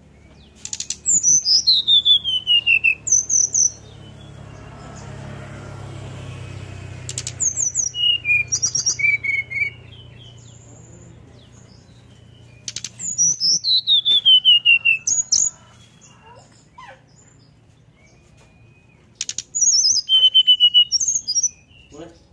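Brown-chested jungle flycatcher singing from its cage: four phrases of clear whistled notes, several sliding down in pitch from very high, roughly every six seconds. A faint low rumble swells and fades in the background between the first two phrases.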